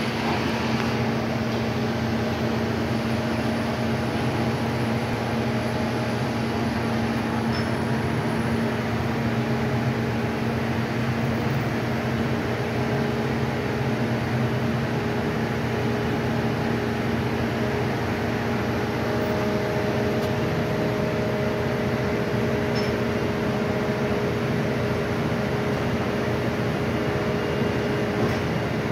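A large engine of the crane or heavy machinery running steadily at constant speed: an even hum with a low steady tone.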